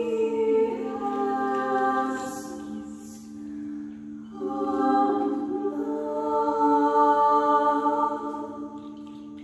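Crystal singing bowls ringing with a steady sustained tone, under voices singing long held notes in two phrases, the first fading about four seconds in and the second swelling and fading near the end.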